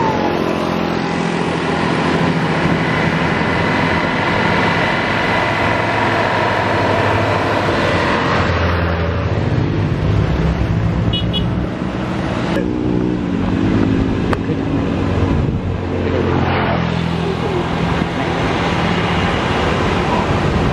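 Coach bus diesel engine pulling uphill under load as the bus drives past. Its pitch and loudness shift abruptly a few times, over steady road and tyre noise.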